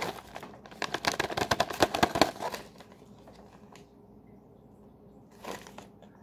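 Crinkling and rustling of a small paper MRE seasoning packet being handled in the hands: a dense run of quick crackles for about two seconds, then quiet, with one more short rustle near the end.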